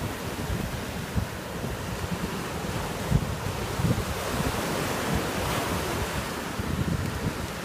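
Small waves breaking and washing up the sand in a steady hiss of surf, with wind gusting irregularly across the microphone as a low rumble.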